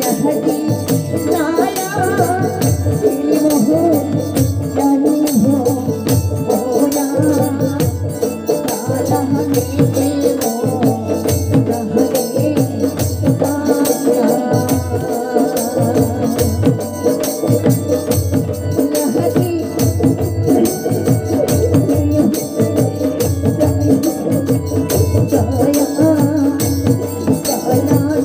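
Rajbongshi Mansa gan folk song performed live through a loudspeaker system: a woman singing over a steady percussion beat with jingling hand percussion and a reedy keyboard accompaniment.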